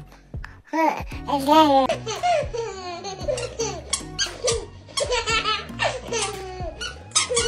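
A toddler laughing hard in repeated bursts of high-pitched giggles, with background music underneath.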